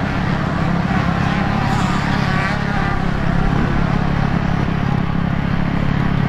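Motocross motorcycle engines running on the track, heard as a steady buzzing drone.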